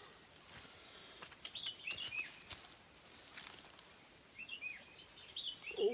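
Outdoor ambience of short, chirping bird calls in two brief clusters, over a steady high-pitched insect drone, with a few faint clicks.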